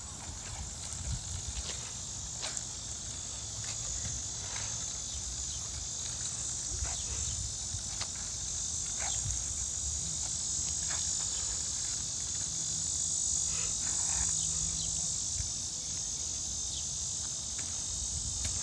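Steady high-pitched drone of summer insects in the trees, with a few faint irregular clicks underneath.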